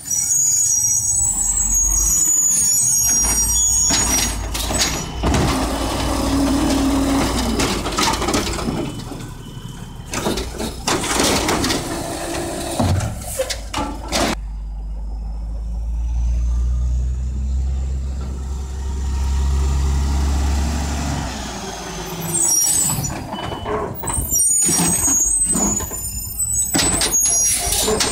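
Mack LE garbage truck with an Amrep body running at the curb: a steady low engine rumble with air hisses, and clatter and knocks from its cart-handling gear in several spells. In the middle a high whine rises, holds and falls away.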